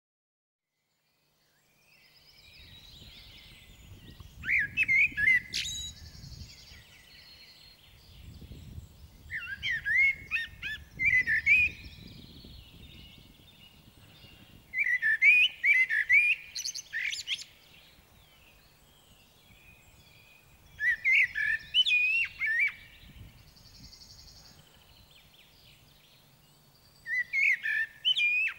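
Common blackbird (Turdus merula) singing: five warbled song phrases, each a couple of seconds long and spaced about six seconds apart, some closing with brief higher notes.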